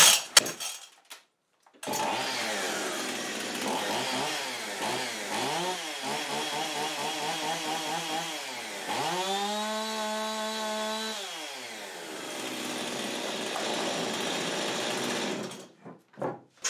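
Husqvarna 55 two-stroke chainsaw starts about two seconds in and runs, revved up and down several times, with one rev held for about two seconds, then cuts off near the end. It runs without missing after carb cleaner has been sprayed into it.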